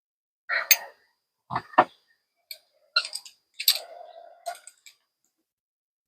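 About six short clicks and knocks, some with a brief metallic ring: frost-free outdoor faucet parts being handled and checked while the leaking faucet is looked over.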